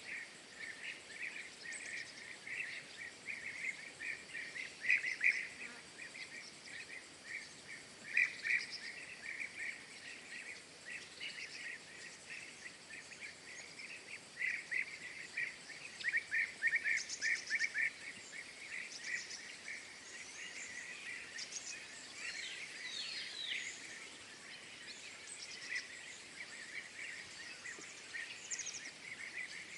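Small birds chirping and trilling over a steady background hiss: rapid clusters of short chirps, with a few higher sliding calls about two-thirds of the way through.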